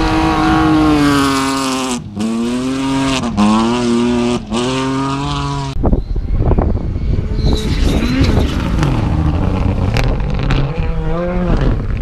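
Rally car engine accelerating hard on a gravel stage, its revs climbing and dropping at quick upshifts about two, three and four and a half seconds in. From about six seconds a fainter rally car engine rises and falls over a steady rushing background, with a short rev near the end.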